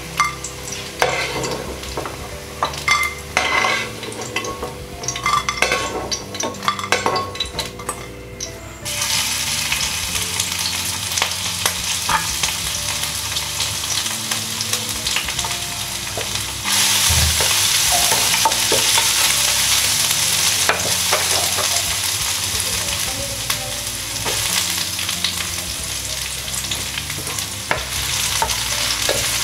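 A metal perforated skimmer clinks against a wok as fried cauliflower florets are lifted from hot oil. After about nine seconds, chopped garlic sizzles steadily in the oil, and the sizzle grows louder a little past halfway.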